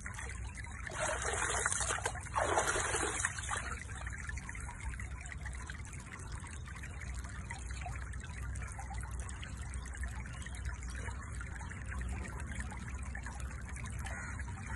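Pool water splashing and trickling as an orangutan's hands move in it, with two louder splashes in the first few seconds, then a steady low background noise.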